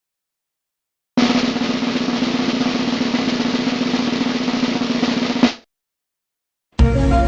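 Drum roll lasting about four seconds, ending with a sharp final hit. Music with melodic notes starts near the end.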